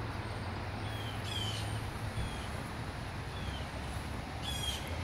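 A bird chirping several times with short, falling notes over a steady outdoor background hiss and low hum.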